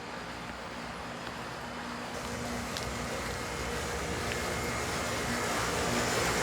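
Running heat pump outdoor units: a steady rush of condenser fans over a low compressor hum, growing gradually louder.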